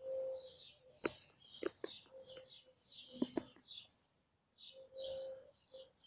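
Small birds chirping in quick, repeated high-pitched bursts, with a few sharp clicks in between.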